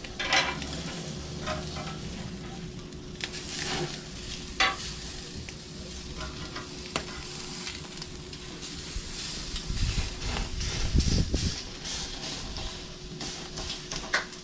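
Two steaks sizzling on a hot barbecue grill, with a few short clicks and scrapes as they are turned a quarter turn.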